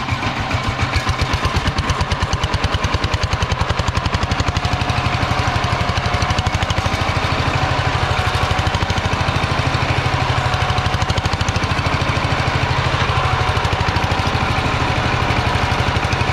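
Single-cylinder diesel engine of a two-wheel power tiller running steadily at a constant speed, with a fast, even chugging beat.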